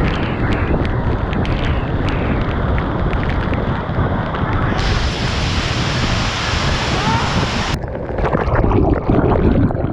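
Waterfall rushing: a loud, steady roar of falling water, with wind buffeting the microphone that grows rougher near the end.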